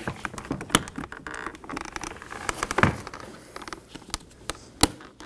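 Irregular plastic clicks, taps and knocks from handling a car's interior door trim panel and its latch cable clips, with three louder knocks spread through.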